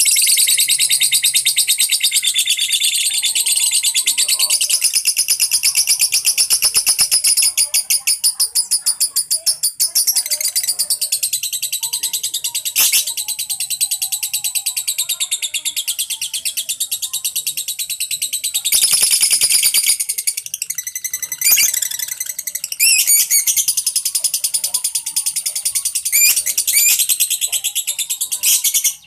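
Lovebirds chattering in one long, rapid, high-pitched trill with hardly a break. The trill swells loudest around two-thirds of the way through and ends in sharper, separate chirps.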